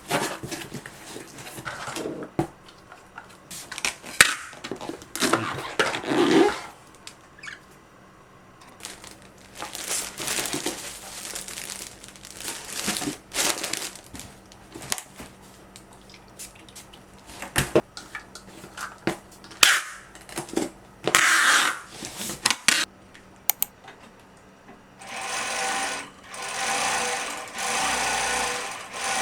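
Scattered clicks, knocks and rustling from handling work at the machine, then, about 25 seconds in, a Juki DDL-900C single-needle lockstitch industrial sewing machine starts and runs steadily at speed.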